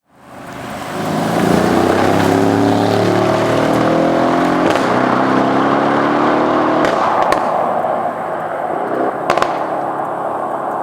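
Mercedes-AMG GLE 63 S Coupe's 5.5-litre biturbo V8 exhaust accelerating, its pitch climbing, breaking briefly about halfway, then climbing again. Later comes sharp exhaust pops and crackles, with a double crack near the end.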